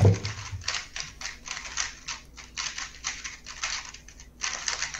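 A 3x3 speed cube being turned very fast during a timed solve: a dense run of rapid plastic clicks, with a short break about four seconds in before a last quick flurry.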